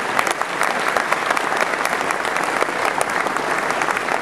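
Audience applauding: a dense, even sound of many hands clapping at once.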